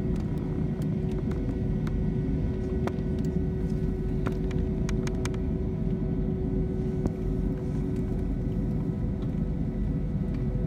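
Jet airliner's engines at takeoff power, heard inside the cabin during the takeoff roll: a steady rumble with a steady engine whine above it. Scattered sharp clicks and rattles come through, most of them around the middle.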